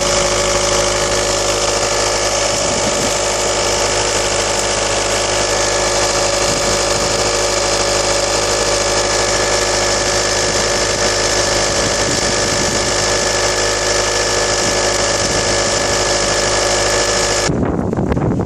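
VW 2.0 TDI (BKD) diesel engine running with a loud, steady whine made of several constant tones, a horrible noise that appeared after the cylinder head rebuild and a new timing belt and water pump. The high tones cut off suddenly about a second before the end, leaving a rougher low rumble.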